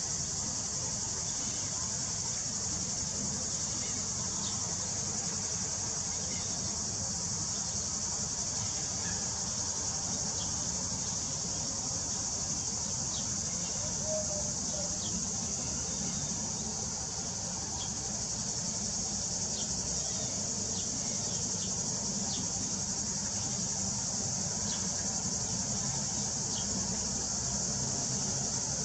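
Steady high-pitched drone of an insect chorus, unbroken throughout, with a few faint short chirps scattered through it.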